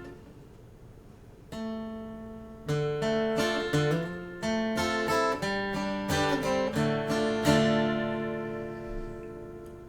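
Acoustic guitar playing a song intro: a first chord about a second and a half in, then a run of strummed and picked chords, with the last chord left ringing and fading near the end.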